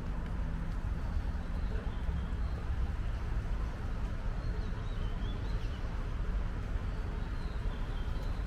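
Steady low rumble of city traffic, with faint short bird chirps over it now and then.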